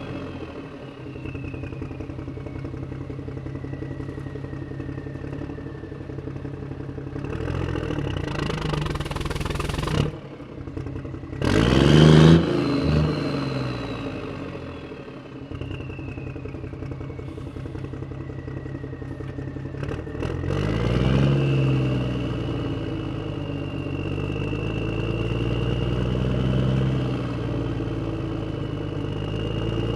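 A motor vehicle's engine running and revving, speeding up and slowing down, with a whine that falls and rises as speed changes. A loud burst of engine noise comes about twelve seconds in.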